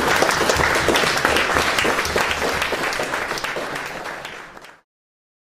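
Audience applauding, a dense patter of many hands clapping that fades and then cuts off suddenly near the end.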